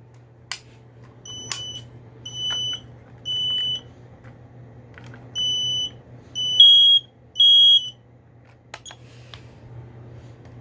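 Smoke alarm piezo sounders giving about six short, high-pitched beeps at uneven intervals, with two alarms of slightly different pitch sounding together near the middle. These are the chirps of alarms powering up as batteries go in. There are a few sharp handling clicks and a steady low hum underneath.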